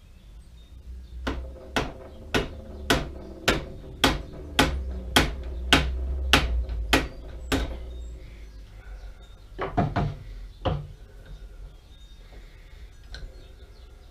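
Hammer blows driving a heavy Pratt & Whitney Model B lathe part onto its locating pins: about a dozen evenly spaced strikes, a little under two a second, each with a short metallic ring. A few more blows follow in a quick cluster a couple of seconds later.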